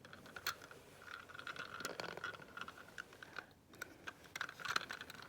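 Faint clicking and scratching of a 1/64 scale die-cast toy tractor and square baler being pushed along by hand, small wheels and parts ticking irregularly.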